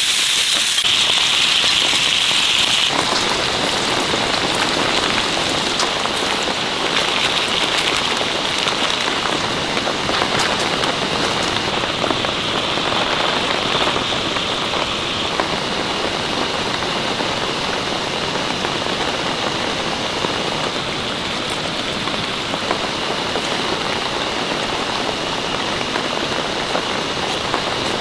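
Heavy rain falling on a tent: a dense, steady hiss, sharper and brighter for the first few seconds.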